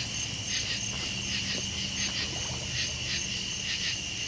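Night insect chorus, likely crickets: a steady high trill with pulsing chirps about two to three times a second.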